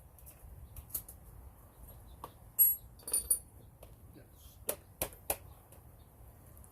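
Scattered metal clinks and clicks of tools and sockets being handled, the sharpest with a brief ring about two and a half seconds in, then a few more clicks near the middle.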